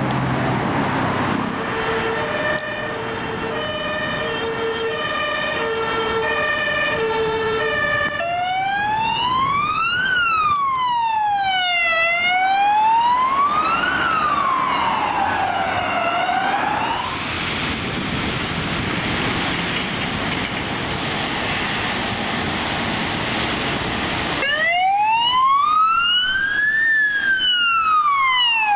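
Belgian emergency-vehicle sirens: a two-tone horn alternating high and low, then a wailing siren sweeping slowly up and down, about four seconds per cycle. After a stretch of traffic noise, another wailing siren starts loud near the end.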